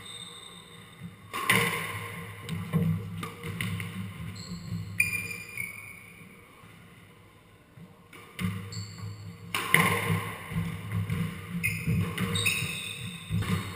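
Squash ball struck by rackets and smacking off the court walls, with short high-pitched shoe squeaks on the wooden floor. A few scattered hits come first, then a lull around the middle, then quick hits in a rally near the end.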